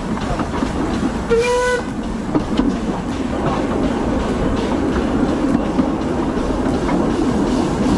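Narrow-gauge steam train running along the track, its wheels clicking over the rail joints over a steady rumble. About a second and a half in, the locomotive gives one short whistle blast of about half a second.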